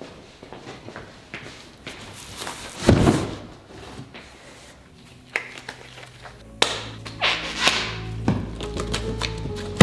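Scattered knocks and taps with one heavy thud about three seconds in; about six and a half seconds in, background music with held notes and a low bass line comes in under further knocks.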